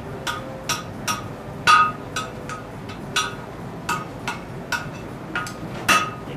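Blacksmith's hammer striking steel on an anvil in a steady rhythm, about two to three blows a second, each blow leaving a short metallic ring. The smith is shaping mild-steel bar into letters for a sign.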